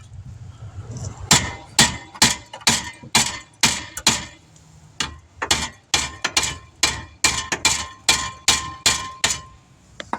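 A hammer strikes steel brake parts in a run of about twenty sharp, slightly ringing blows, two or three a second, with a short pause midway. It is hammering on a stuck, ungreased brake caliper slide pin to drive it free.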